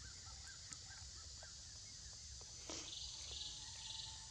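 Faint outdoor forest ambience: a steady high insect hiss, a few soft, quick chirps in the first second, and a brief rustling noise about three seconds in.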